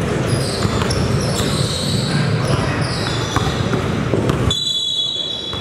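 Gym sound of a basketball game in play: balls bouncing on the hardwood floor, sneakers squeaking in short high glides and a background hubbub of voices echoing in the hall. Near the end the low rumble drops away suddenly and a steady high tone holds.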